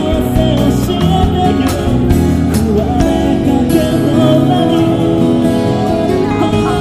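A street singer singing into a handheld microphone over instrumental backing music.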